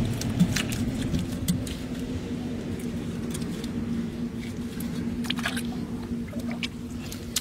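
A hoe scraping and knocking at the dirt inside a hole in a muddy clay bank: scattered sharp knocks and scrapes, over a steady low hum.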